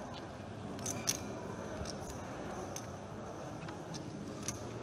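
Poker chips clicking against each other a few times as a stack is pushed in for a call, over low steady room noise.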